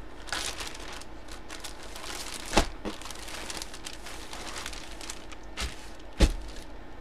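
Clear plastic bag crinkling as it is handled, with two sharp knocks, one about two and a half seconds in and a louder one near the end.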